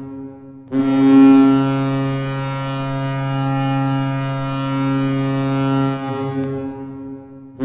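Hockey arena goal horn sounding one long, steady blast of about five seconds, which then dies away. A new blast starts right at the end.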